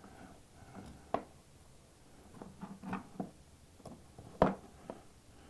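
A few light clicks and knocks from handling parts, spaced irregularly, the loudest about four and a half seconds in, over a quiet room.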